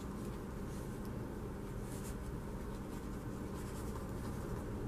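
Faint scratching and rubbing of paper: a cut-out paper flower being handled and the tip of a wet liquid glue bottle dragged across its back.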